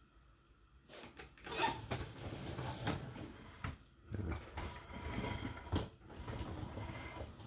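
Dishwasher rack sliding on its rails and dishes being handled: a run of scraping and rattling with sharp clicks, starting about a second in and pausing briefly midway.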